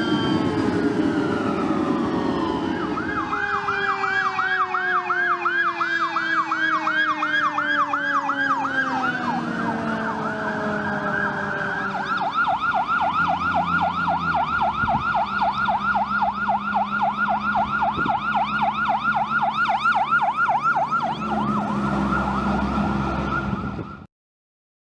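Fire truck sirens on passing apparatus: an electronic siren in a rapid yelp, about three sweeps a second, while a second siren winds down in one long falling tone. About halfway through another fire truck's yelp siren takes over with a low engine rumble beneath, and the sound cuts off suddenly near the end.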